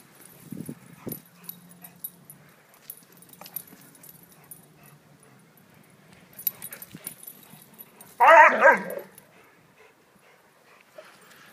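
Great Dane puppies playing rough, with one loud, high yelp about eight seconds in that lasts under a second, amid quieter scuffling.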